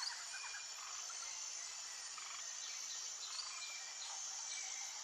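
Rainforest ambience: a steady high insect-like hiss with scattered short bird chirps over it.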